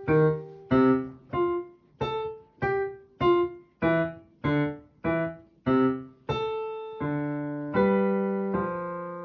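Kawai digital piano played with both hands: a steady series of detached notes, a low note and a higher note struck together, about three every two seconds, the last few held longer.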